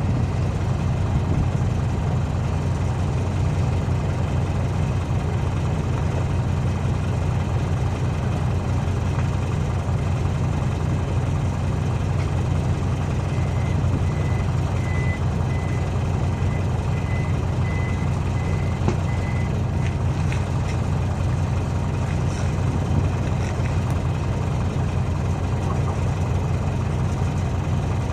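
Large diesel engine idling steadily with a deep, even rumble. In the middle, a run of about eight short, high beeps comes roughly one every 0.8 seconds, like a reversing alarm.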